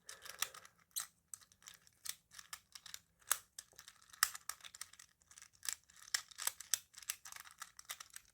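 Crinkling plastic packaging and irregular small plastic clicks and rustles as a small fidget toy is unwrapped and handled.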